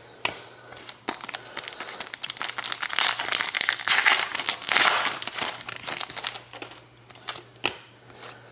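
A trading card pack wrapper being torn open and crinkled, with a few sharp clicks at first and the crinkling loudest in the middle.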